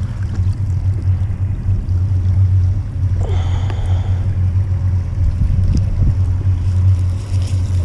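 Boat's outboard motor idling with a steady low hum.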